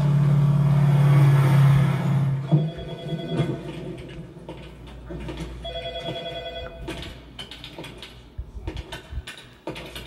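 Low hum of street traffic with a car engine for the first couple of seconds, then a telephone ringing twice, each ring about a second long and a few seconds apart. Scattered light clicks and taps near the end.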